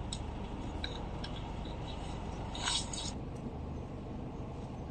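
Steady low rumble of a car heard from inside the cabin, with a few light clicks and a brief scraping rattle about two and a half seconds in.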